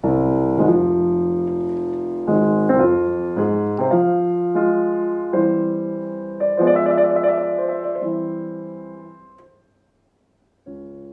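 Fazioli F308 concert grand piano playing a slow series of sustained chords with its fourth pedal held down. The fourth pedal moves the hammers closer to the strings to soften the volume. The last chord rings away to silence about nine and a half seconds in, and a new chord starts near the end.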